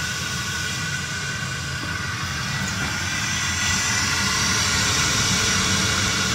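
EBM-Papst RG148 combustion-air blower of a Baymak Lectus 115 kW boiler running steadily, undergoing a test after repair of its controller board: a steady whirring rush with a low rumble and a thin high whine. It grows a little louder and brighter about three and a half seconds in.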